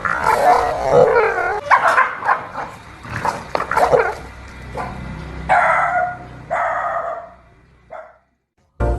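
Dogs barking in a rapid run of barks, then two single loud barks about five and a half and six and a half seconds in, fading out near the end.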